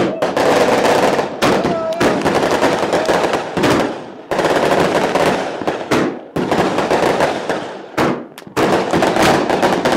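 A firecracker string going off, a rapid, dense rattle of loud bangs like machine-gun fire, coming in runs of a second or two with brief lulls between.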